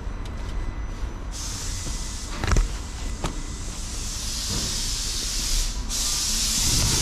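A steady hiss that starts abruptly about a second in, over a low rumble, with two short knocks in the middle.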